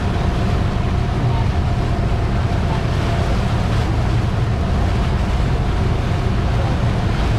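Motorboat running steadily at speed, its engine noise mixed with the rushing, churning wake behind the stern and wind buffeting the microphone.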